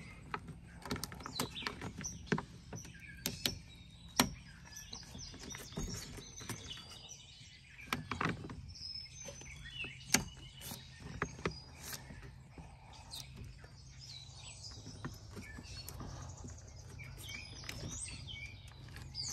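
Irregular clicks, taps and knocks of a plastic door trim panel being pressed and clipped back onto a Toyota Tacoma's door, with birds chirping faintly in the background.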